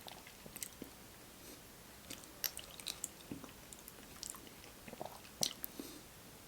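A person chewing fried chicken close to the microphone: soft, scattered crunches and wet mouth clicks.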